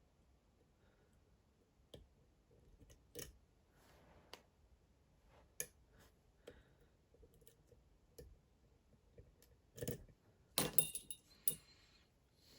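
Light metallic clicks of lock picks working inside a Dom IX Twinstar lock, spaced a second or two apart, with a louder cluster of clicks and rattling about ten seconds in.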